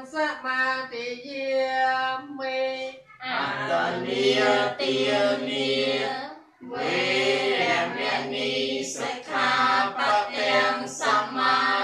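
Buddhist devotional chanting. A single higher voice chants at first, then from about three seconds in a group of voices chants together in unison, pausing briefly about halfway through.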